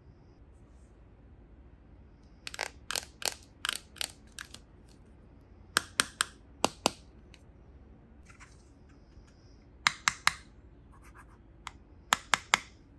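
Small hard plastic toy pieces being handled, giving sharp clicks and taps in quick clusters of three or four, repeated several times.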